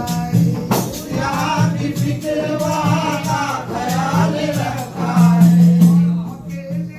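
Men singing a devotional song over large hand-held frame drums (daf) beaten in a steady rhythm. A low held note grows loudest about five seconds in.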